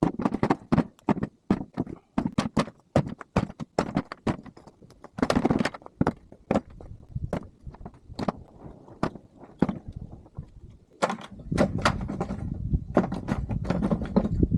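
Scrap wood being handled: a run of irregular knocks, clacks and thunks as pieces are picked up and dropped, then a longer stretch of steady scraping and rustling near the end.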